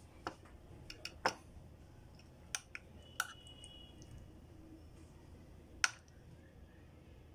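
Steel spoon clicking against a glass food container while it lifts and turns paneer in thick gravy: several sharp, scattered clinks, the loudest about a second in and near the end.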